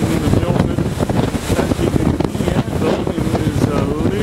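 Strong, cold katabatic wind, around 100 km/h, buffeting the microphone in a loud, steady rush, with a faint wavering whistle rising and falling.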